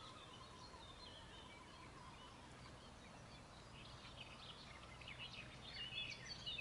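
Faint birdsong: many short chirps and trills from small birds, growing busier over the last couple of seconds, over a faint steady low hum.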